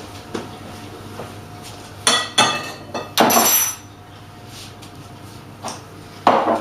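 A drinking glass and kitchenware clinking and knocking: a few light knocks, then a quick run of knocks about two seconds in, a longer clatter just after three seconds, and a louder knock near the end.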